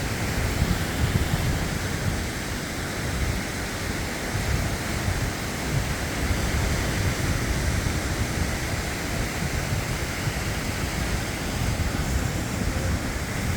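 Strong wind buffeting the microphone in a rough, uneven low rumble, over a steady rush of sea surf.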